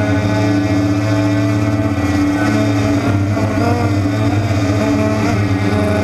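DJI Phantom quadcopter's propellers humming steadily at a close, constant pitch as the drone hovers low over the ground.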